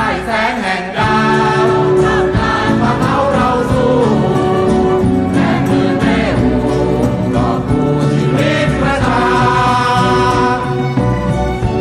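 Music with choral singing: sustained voices over held chords and a low bass line.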